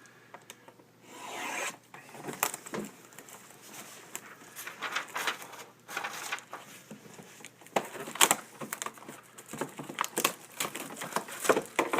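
Plastic shrink-wrap being torn open and pulled off a sealed box of hockey cards, in irregular rasping rips with crinkles and sharp clicks.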